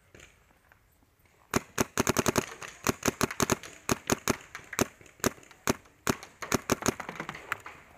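Paintball marker firing in quick, uneven strings of sharp shots, some thirty in all, starting about a second and a half in.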